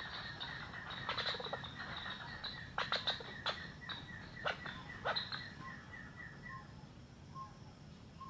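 Hill partridge (puyuh gonggong) calls: a run of short whistled notes repeated quickly, fading out about two-thirds of the way in, with a few sharp snaps in the first half. From about six seconds in, lower single notes follow, evenly spaced about every half-second.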